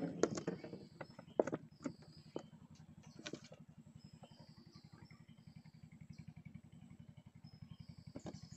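A small engine running steadily at idle, a low even rapid pulse. Over it, a few sharp clicks and knocks in the first few seconds, the loudest about a second and a half in, and some short faint high chirps.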